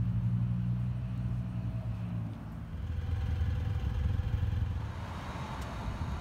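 Low, steady engine rumble of motor vehicles, which changes abruptly about two seconds in to the wash of passing road traffic.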